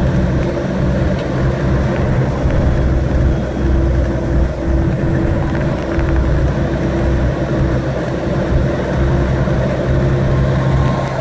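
Western Star 4800 truck's diesel engine and road noise heard from inside the cab while cruising at highway speed: a steady low drone with a steady higher tone above it.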